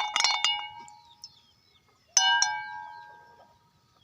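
Metal kitchenware clinking: a few quick clinks at the start, then two sharp strikes about two seconds in that ring on and die away over about a second.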